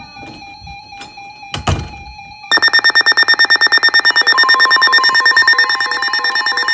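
Emergency alert alarm on a weather radio: a single thump, then about two and a half seconds in a loud rapid beeping, about nine beeps a second. A steady warning tone joins underneath it a couple of seconds later.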